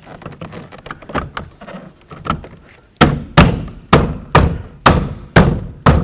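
Plastic door trim panel on a Chevy K1500 clicking and rubbing faintly as it is slid into place. From about halfway, a hand strikes it about seven times, roughly two blows a second: loving bonks that seat its push clips.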